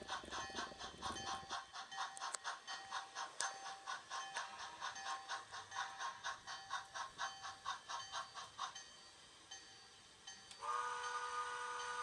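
Model train's electronic sound effects: a rhythmic ringing, about two or three strokes a second, that stops about nine seconds in. Near the end a steady whistle-like chord of several tones starts.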